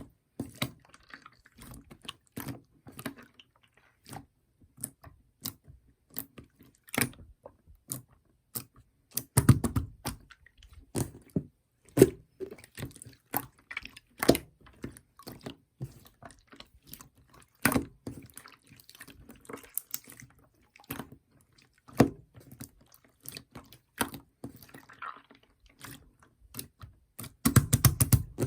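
Clear slime being squished and pressed by hand, giving irregular wet, sticky clicks and pops, with quicker runs of clicks about ten seconds in and near the end.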